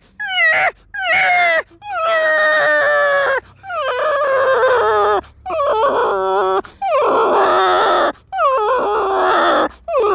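A man imitating a dog whimpering and howling in the cold: a string of about nine high whines, each sliding down in pitch, the later ones drawn out longer.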